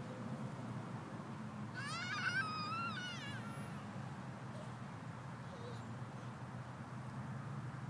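A toddler's high-pitched squeal, wavering in pitch, about two seconds in and lasting roughly a second and a half, over a steady low background hum.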